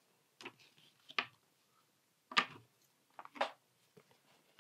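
Paper leaflets being handled and set down on a wooden tabletop: a handful of short rustles and taps, the loudest about two and a half seconds in.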